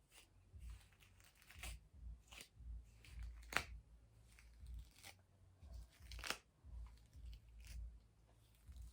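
Faint, scattered rustling and crackling of hands handling things close by, with a sharper crack about three and a half seconds in and another a little after six seconds.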